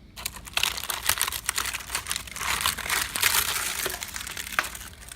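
Termites at work inside wood: a dense, irregular crackling of many rapid ticks, loudest through the middle and thinning near the end. It is the sign of an active termite infestation.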